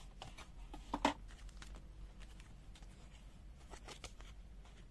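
Faint handling noises of a small multimeter's packaging and contents: scattered light clicks and rustles, with one louder knock about a second in and a few quick clicks near the end.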